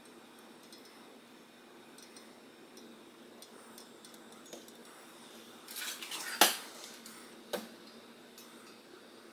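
A short clatter of hard metal-on-metal clinks, like tools or wheel hardware being handled and set down, with one loud sharp clink about six seconds in and a single further clink about a second later, over a faint steady background.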